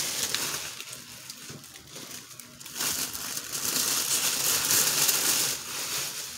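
Plastic packaging bag and tissue paper crinkling and rustling as a new handbag is unwrapped. The crinkling is loud at first and eases about a second in, then comes again loudly from about three seconds in to five and a half.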